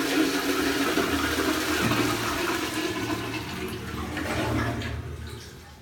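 Toilet flushing from a cistern mounted high on the wall: water rushes down the flush pipe into the bowl, gradually fading and stopping near the end.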